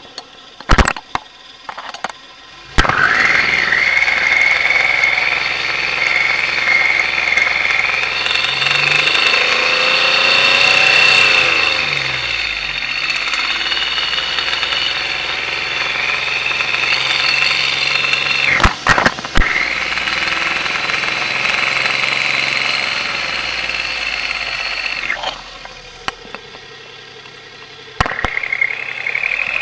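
1993 Geo Metro's 1.0-litre three-cylinder engine starting after a few clicks and then running with a loud, high-pitched whine over it. The sound breaks off for a moment a little past halfway, drops much quieter for a few seconds near the end, then picks back up.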